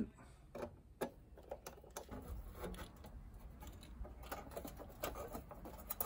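Faint, irregular small metallic clicks and ticks of a hand screwdriver working a screw and a sheet-metal exhaust vent being fitted into place.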